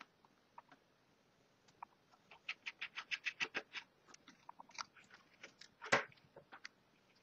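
Small clicks and taps of a disassembled mobile phone's plastic and metal parts and tiny screws being handled: a quick run of about eight clicks a second in the middle, then scattered ticks and one louder click near the end.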